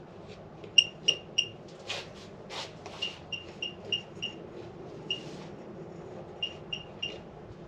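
Handheld pinpointer metal detector giving short, high beeps in quick runs of three to five as it is passed against a rock and picks up a signal from it. A couple of brief rubbing swishes from handling the rock come in around two seconds in.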